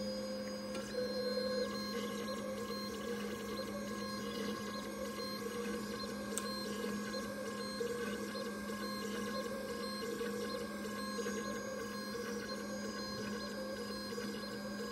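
PocketNC V2 desktop five-axis CNC mill running: its spindle and axis motors give a steady whine with several held tones while the end mill cuts a blue workpiece.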